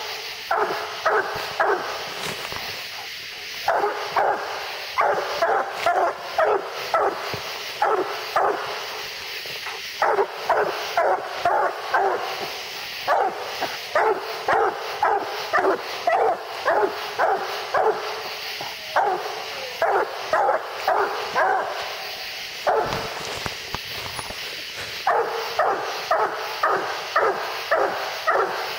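Black and tan coonhound barking treed at the base of a tree: short barks about two a second in bouts of several seconds, with brief pauses between bouts, over a steady high hiss.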